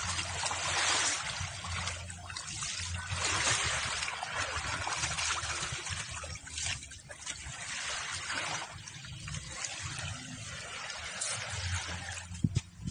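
Shallow water washing and trickling at the edge of a sandy shore, a hiss that swells and fades every second or two, with a couple of sharp knocks near the end.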